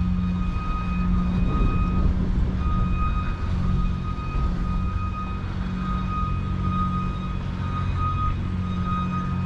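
An engine running steadily, a low hum with a steady high-pitched whine over it that wavers slightly but never stops, typical of construction machinery or an idling truck.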